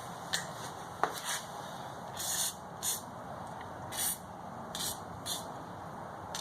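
WD-40 aerosol can sprayed in a series of short hissing bursts, about half a dozen, the longest lasting about half a second.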